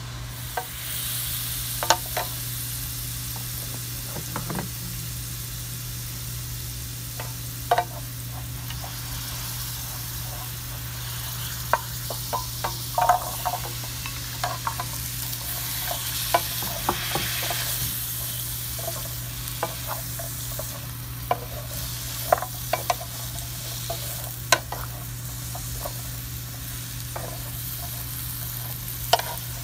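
Asparagus spears frying in butter in a hot pan, with a steady sizzle, while a wooden spatula stirs them, knocking and scraping against the pan at irregular moments.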